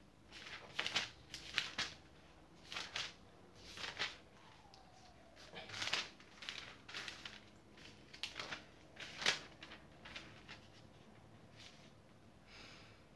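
Paper rustling and pages being flipped in short, irregular bursts: someone leafing through a book or notes in search of a passage.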